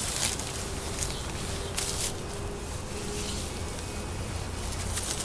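Packing material rustling and crinkling in a few short bursts as a shipped orchid is unwrapped, over a faint steady buzz.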